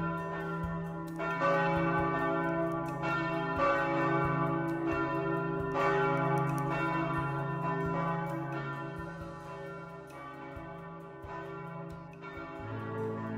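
Church bells ringing, with repeated strikes about every second or two whose tones ring on and overlap. A lower sustained tone comes in near the end.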